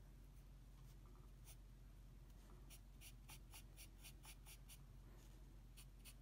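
Faint scratching of a drawing pencil on paper: short shading strokes, a few early on, a quick run of about four strokes a second through the middle, and more near the end. A low steady room hum lies underneath.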